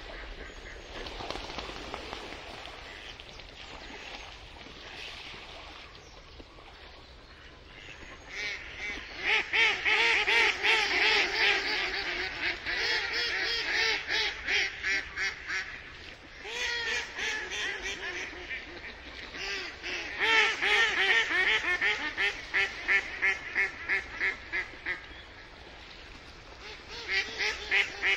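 Mallard hen quacking in fast runs of about four quacks a second. There are four such runs, after a quieter first few seconds.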